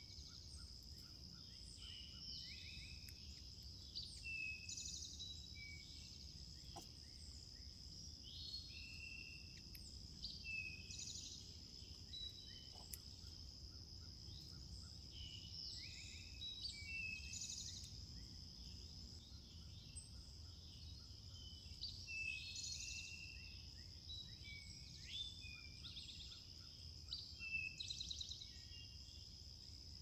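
Several wild songbirds chirping and trilling in short, frequent calls over a steady high-pitched insect drone.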